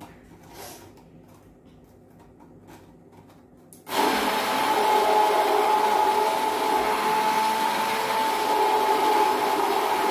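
Electric blender switched on about four seconds in after a few faint clicks, then running steadily and loudly, with a steady whine. It is blending the orange drink mix, sugar and water a second time because the sugar has not yet dissolved.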